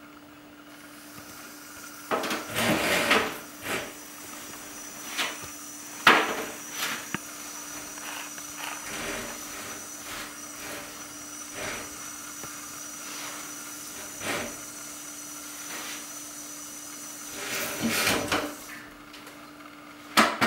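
Kitchen faucet running water over potting soil on a metal baking sheet in a steel sink while hands work the wet soil, louder in two stretches and shut off near the end. A few sharp knocks from the sheet and sink come through, one about six seconds in and one just before the end.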